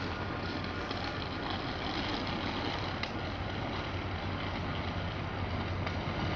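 Diesel locomotives, a G26HCW-2 and a G22CW-2, approaching from a distance: a steady low engine rumble that grows slowly louder.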